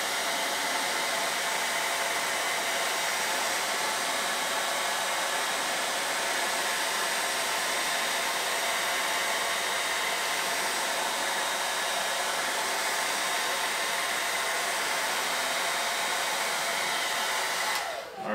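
Handheld hair dryer running steadily on heat, blowing onto hairsprayed fake fur to heat-set it flat. It switches off and winds down near the end.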